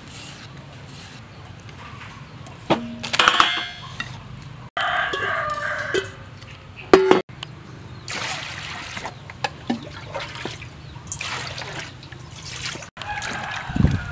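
Water pouring and splashing into a steel bowl as leafy greens and vegetables are washed by hand. The sound comes in several short bursts, with a sharp knock about halfway through and a dull thump near the end.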